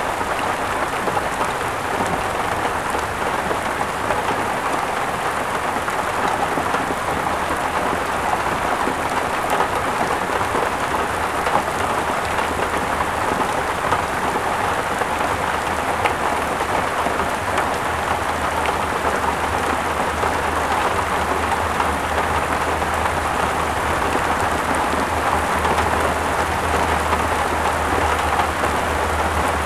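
Heavy rain pouring steadily, a dense even hiss of drops hitting the ground and surfaces. A low rumble grows stronger over the last several seconds.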